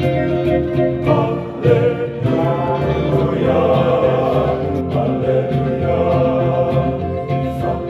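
Men's choir singing a Catholic liturgical song in several voice parts, holding chords that change every second or two.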